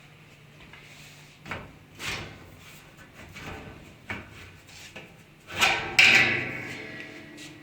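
Knocks and sliding rattles of a commercial dishwasher being worked by hand, door and racks, ending in a loud clank about two-thirds of the way through that rings on and fades.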